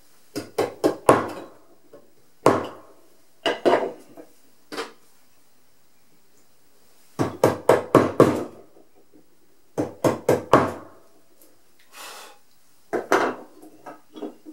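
Carving chisel tapped into hard zelkova (keyaki) wood for finishing cuts: quick bursts of three to six sharp knocks, a few a second, with short pauses between bursts, and one softer scraping cut near the end.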